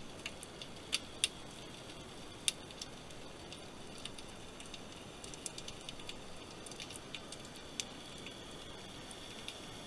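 Underwater ambience heard through a camera housing: a steady hiss with scattered sharp clicks and crackles, a few of them louder, about a second in and again near two and a half seconds.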